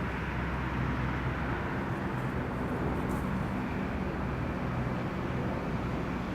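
Steady rumble of motor traffic with a low engine hum, unchanging throughout.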